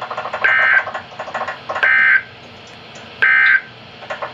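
NOAA Weather Radio's end-of-message data signal: three short, harsh electronic buzzes of digital SAME code, each about a third of a second and roughly a second and a half apart. This marks the close of the Special Marine Warning. A rapid rattling buzz runs underneath during the first second and a half.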